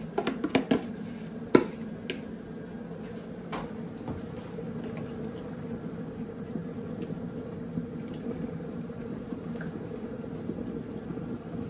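A wooden spoon knocks and scrapes against a bowl and a metal cooking pot as rice is added to simmering chicken pilau gravy and stirred. There are a few sharp taps in the first second or two, then quieter stirring over a steady low hum.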